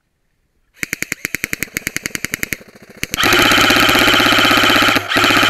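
Airsoft rifle firing full-auto: a run of rapid shots, about eleven a second, starting about a second in, then a louder, faster continuous burst from about three seconds in.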